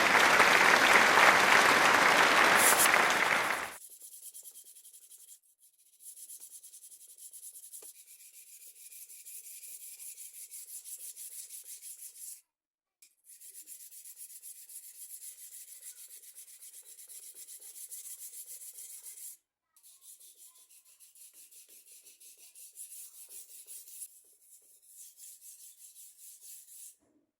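Kitchen knife blade stroked back and forth on a sharpening stone: faint, rapid scraping strokes, stopping briefly twice. A loud, even rush of noise fills the first four seconds.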